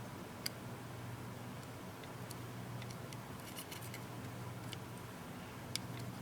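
Scattered small, sharp clicks and ticks of tools and small parts being handled while the taped-down charging port board is pulled up out of a Samsung Galaxy Tab 3 tablet, a few coming in quick succession midway, over a steady low hum.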